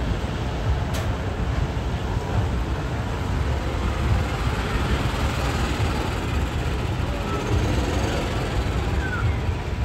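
Steady outdoor crowd background: indistinct chatter of passers-by over a continuous low rumble.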